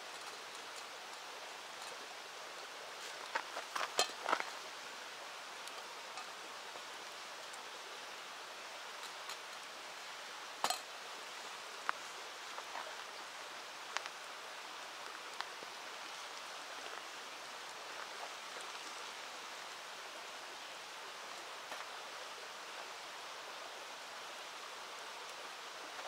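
River water flowing steadily, an even rushing hiss. A cluster of sharp clinks comes about four seconds in, and a few single clicks follow between about ten and fifteen seconds in.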